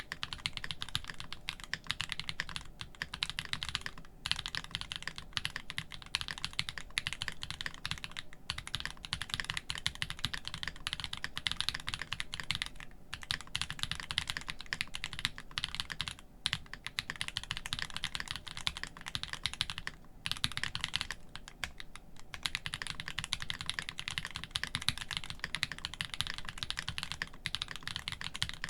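Monstergear Sangeo65 mechanical keyboard, with an aluminium plate, plate foam, lubed KTT Grapefruit switches and GMK keycaps, being typed on quickly and continuously with a clacky sound. The typing stops for a moment several times.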